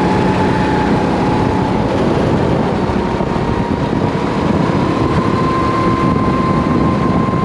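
Rental race kart engine running steadily under way, picked up onboard with heavy wind rush on the GoPro's microphone. The engine's pitch dips a little near the start, then slowly climbs.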